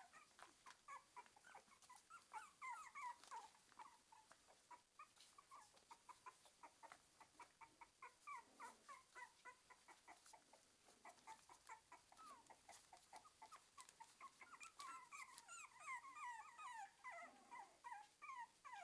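Pomeranian puppies whimpering: many short, high-pitched squeaks, each falling in pitch, coming faintly and almost without pause, with light clicks between.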